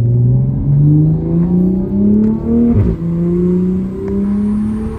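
Car engine accelerating hard, heard from inside the cabin: its pitch climbs, drops sharply at a gear change about three seconds in, then climbs again.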